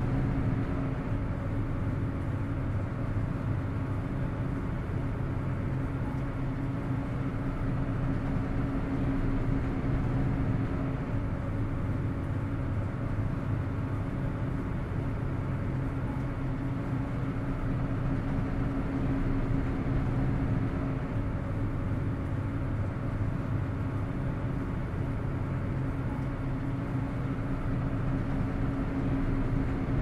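Steady low drone of a ferry's engines and machinery under way: a deep rumble with a constant hum at one pitch on top, swelling slightly now and then.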